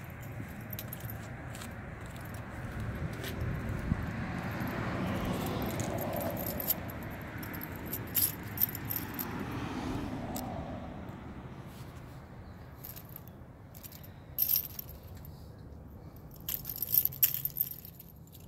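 Anodized aluminum and plastic scales of a scalemail costume tail clinking and jingling against each other as the tail swings and is handled, in scattered bursts that are loudest near the end. A low background rumble swells and fades in the middle.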